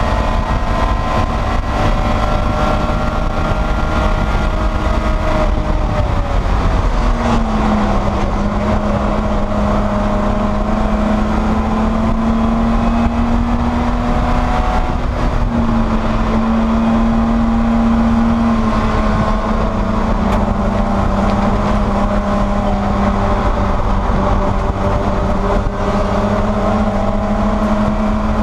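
BMW E30 race car's inline-six engine pulling hard on track, heard from inside the car over heavy wind and road rumble. The engine note drops about a quarter of the way in, then holds fairly steady with small shifts in pitch.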